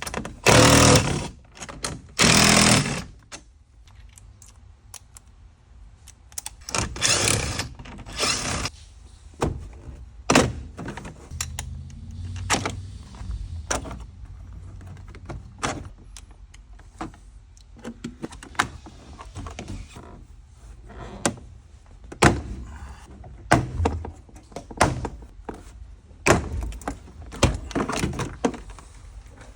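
A van's interior door trim panel being worked off by hand: a couple of loud rasping bursts near the start, then irregular plastic knocks, clicks and thunks as the panel and its fasteners come loose.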